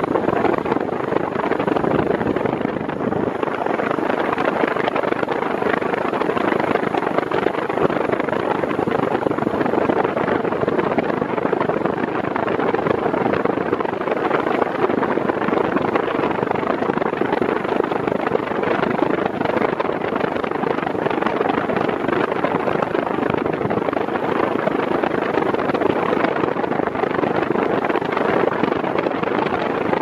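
Arno Silence Force 40 cm (VF40) fan running at maximum speed, a steady, even rush of air from its blades, strong enough to drive an anemometer to about 44 km/h.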